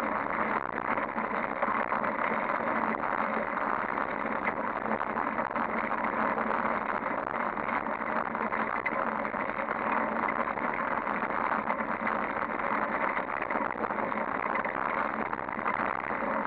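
Bicycle rolling over rough asphalt, heard through a camera mounted on its handlebars: a steady rattle and hiss of tyre and road vibration.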